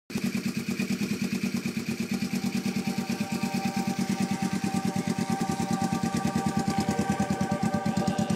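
Yamaha XS400 bobber's air-cooled parallel-twin engine idling through short, heat-wrapped open exhaust pipes, with an even pulsing beat, running for the first time after winter storage.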